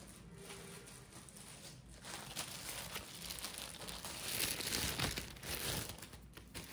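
Clear plastic bag crinkling and rustling as it is handled, growing louder about two seconds in and loudest in the second half.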